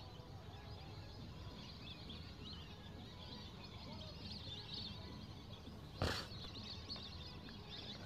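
A flock of migratory birds calling faintly, many quick, overlapping high chirps and whistles over a steady low background rumble. A single short knock about six seconds in.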